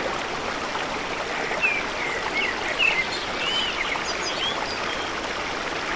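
Steady rushing of flowing river water, with small birds chirping several times over it, the chirps clustering in the middle.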